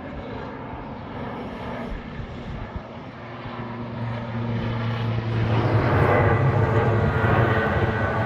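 Aircraft engines of a display aircraft in flight, growing much louder about five seconds in as the aircraft draws nearer, with a steady low hum under the engine noise.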